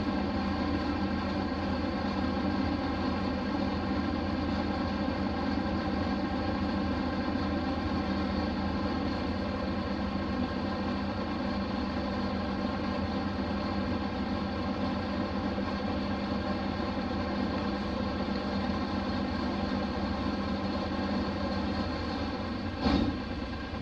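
Hino Blue Ribbon RC monocoque bus engine running steadily while the bus is under way, heard from inside the cabin. Near the end a single knock comes, and the engine sound drops after it.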